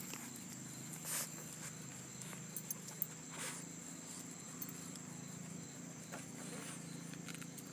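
A dog snuffling and snorting with its nose pushed into grass, rooting the ground like a pig. It gives a few short, breathy snorts about a second in, midway, and near the end.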